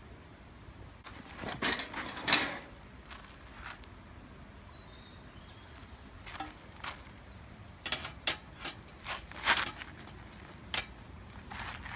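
Objects being handled: a dozen or so irregular knocks and clatters with some rustling. The loudest come about two seconds in and again about nine and a half seconds in.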